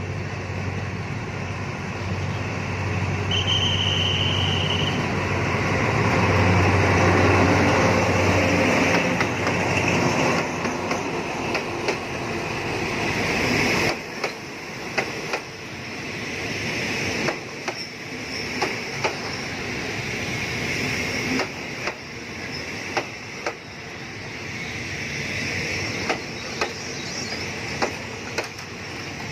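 Diesel locomotive of a passenger train approaching and passing with a low engine drone, loudest about seven seconds in. Its coaches then roll slowly past, the wheels clacking over rail joints in regular pairs.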